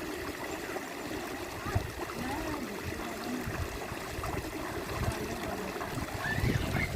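River water flowing steadily over stones, a constant rushing, with faint voices over it and one sharp knock just under two seconds in.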